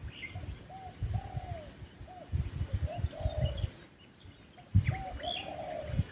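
Spotted dove (terkukur) cooing, a series of short and drawn-out soft coos repeating throughout, with faint chirps of other small birds and low thumps underneath.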